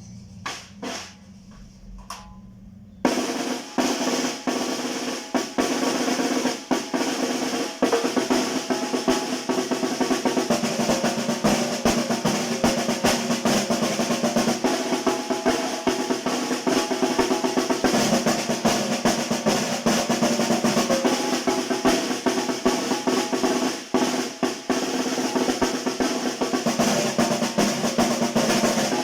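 Tarolona, a large banda snare drum: a few light taps, then from about three seconds in it is played continuously in fast rolls and strokes.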